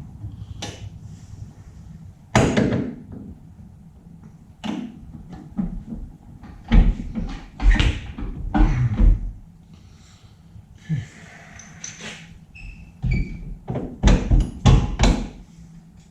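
Irregular heavy clunks and knocks of metal car parts being moved and fitted, the loudest ones deep thumps in two clusters, in the middle and near the end.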